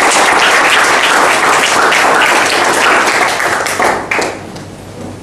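Audience applauding, many people clapping; the applause thins out and stops about four seconds in.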